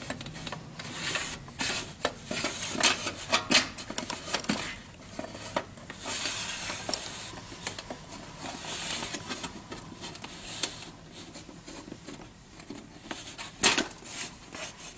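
Metal housing of a T5 aquarium light fixture being handled and slid together: sheet metal sliding and scraping, with scattered clicks and taps and one sharp knock near the end.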